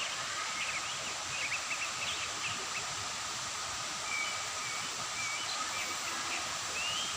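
Forest ambience: birds calling in short chirps and trills over a steady background hiss and a faint steady high drone.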